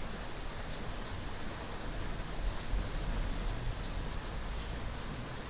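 Steady rain falling, an even hiss with faint drop ticks.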